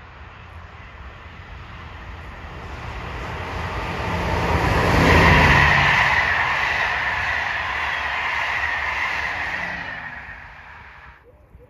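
SNCF BB 26000-series electric locomotive and its Intercités coaches passing at speed: the wheel and rail noise builds, is loudest about five seconds in as the train draws level, and holds as the coaches run by. It cuts off suddenly near the end.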